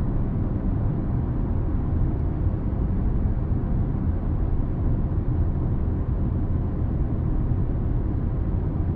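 Steady low rumble of road and tyre noise inside the cabin of a new Toyota Corolla Touring cruising at a constant speed.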